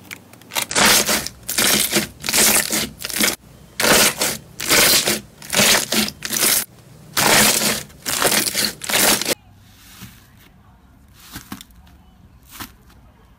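Hands pressing and squashing a glossy clear-type slime, giving a string of loud noisy bursts about a second apart. About nine seconds in it changes to faint scattered crunchy ticks as fingers dig into a fluffy blue slime.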